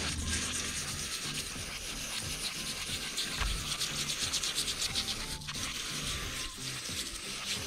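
A toothbrush scrubbing a grimy engine cylinder head in quick back-and-forth strokes, with the hiss of aerosol parts cleaner being sprayed onto it.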